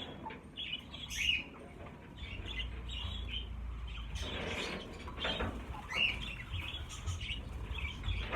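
A flock of budgerigars chirping, with bursts of wing flapping.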